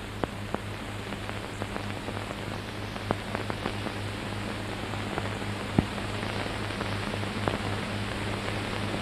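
Worn optical film soundtrack noise: a steady hiss over a low hum, with scattered crackles and pops.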